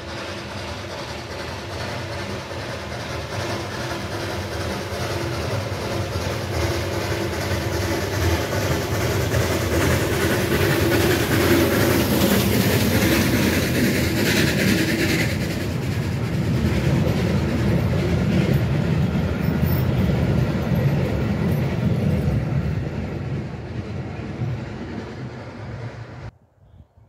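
Steam locomotive hauling a train of wooden passenger coaches approaches and runs past, its wheels running on the rails. The sound builds as it nears, stays loud while the coaches go by, and cuts off suddenly near the end.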